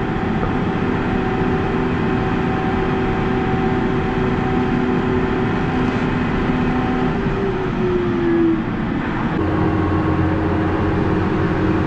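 Combine harvester running steadily, with several steady hum tones over its noise. About nine and a half seconds in, the sound switches abruptly to a deeper, steadier hum.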